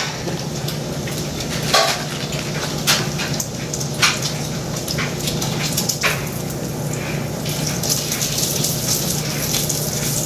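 Food sizzling steadily in a frying pan, with a few sharp clinks of a utensil against the pan.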